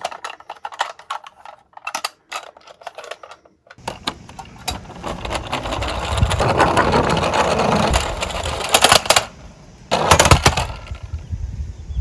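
Plastic toy garbage truck handled with light clicks and knocks. About four seconds in it rolls down a wooden plank slope, its plastic wheels on the wood making a rumbling, building up loudest midway, with a few sharp knocks near the end.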